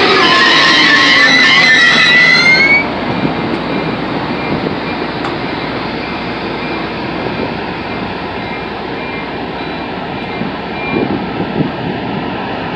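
Siemens Charger diesel-electric locomotive pulling a Coaster commuter train away from the platform. Its engine and drive give a rising whine as it accelerates for the first few seconds, which cuts off abruptly to a steadier rumble of the moving train, with a few louder rumbles near the end.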